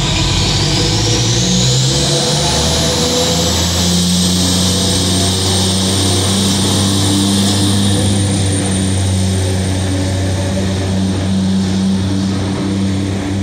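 Subway work train with a diesel locomotive passing close by: a loud, steady engine drone with a low hum and wheel rumble. A high whine rises in pitch over the first few seconds, then holds steady.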